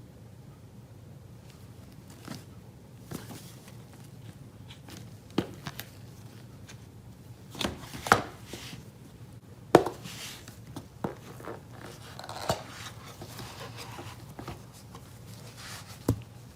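Hand-handling noise of a phone and its packaging: scattered taps and clicks, the loudest about eight and ten seconds in, with light rustling in between.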